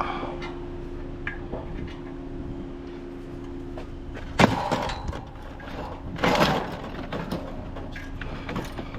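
Curbside scrap being handled: a sharp knock about halfway through and a longer clatter a couple of seconds later, with scattered smaller clicks over a steady low hum.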